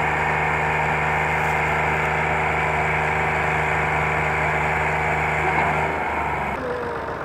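Diesel engines of two Al-Ghazi tractors hitched in tandem, running at a steady speed while pulling a loaded sugarcane trolley. The engine note changes and drops a little near the end.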